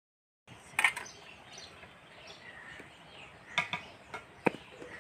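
Faint outdoor ambience with a few short bird chirps, one about a second in, and a handful of brief clicks in the second half.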